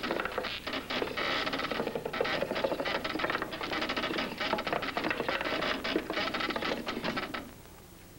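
Ratchet of a torture rack's rope winch clattering rapidly and steadily, then stopping abruptly about seven and a half seconds in.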